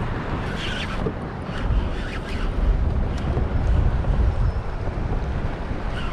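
Wind buffeting the microphone: a low rumble that swells in the middle, with a few faint ticks in the first couple of seconds.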